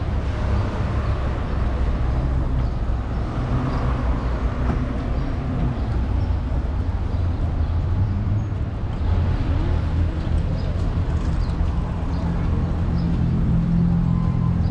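Street traffic running steadily along a town-centre road as a continuous low rumble. A vehicle engine hum grows a little louder near the end.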